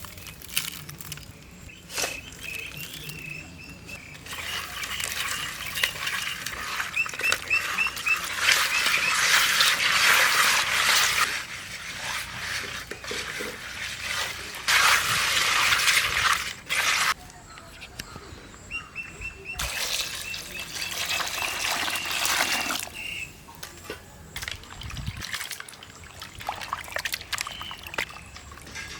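Water being poured and splashed in several bursts, the longest lasting several seconds. Between the bursts a thin, high, steady tone comes and goes.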